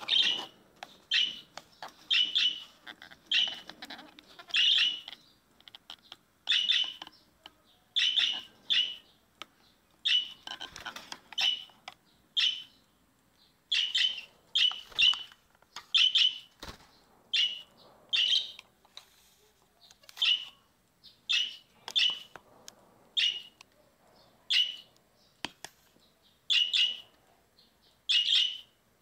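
Pet budgerigars chirping: short, bright calls repeated about once or twice a second, with brief pauses between them.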